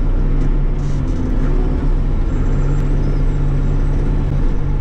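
Bobcat E42 mini excavator's diesel engine running steadily at working speed, a constant low drone while the boom and bucket are worked.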